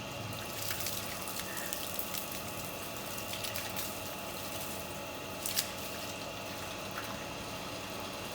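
Running water pouring steadily, with a few brief clicks on top, the sharpest about five and a half seconds in.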